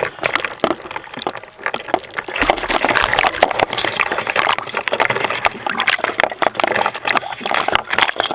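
Sea water splashing and sloshing right at the microphone, held just above the surface: a dense, irregular run of small crackling splashes.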